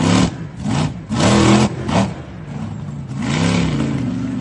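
Monster truck engine revving hard in repeated bursts, its pitch climbing and dropping five or six times.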